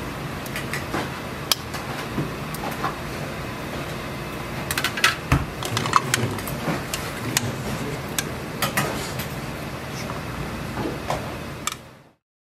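Metal scoop and utensils clinking and scraping against stainless steel bowls as radish kimchi is dished up, in scattered sharp clicks over a steady background hum. The sound cuts off near the end.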